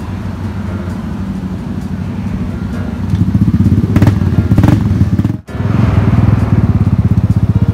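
Yamaha Aerox 155 scooter's single-cylinder engine running through an aftermarket exhaust, a steady pulsing beat. About three seconds in it gets louder, drops out for a moment just past five seconds, then carries on.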